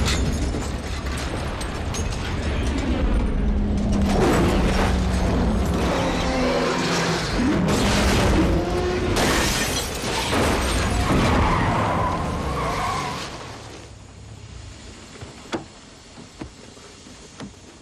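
Film soundtrack of a street race between a black Dodge Charger and an orange Toyota Supra: engines revving hard at full throttle, with tyre noise and a crash with breaking glass and metal. About thirteen seconds in it drops to a quiet stretch broken by a few small clicks.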